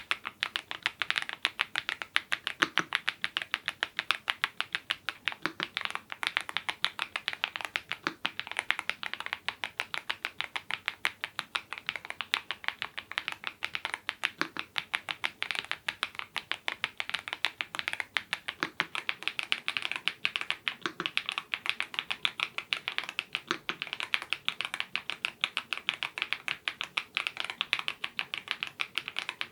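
Steady, fast typing on a YUNZII IF99 full-size mechanical keyboard with lubed Gateron Zero switches: a rapid run of key clacks, several a second, with a deeper knock every few seconds.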